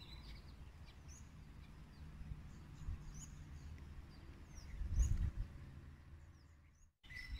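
Birds chirping, many short high calls, over a faint steady low outdoor rumble, with a brief louder low swell about five seconds in.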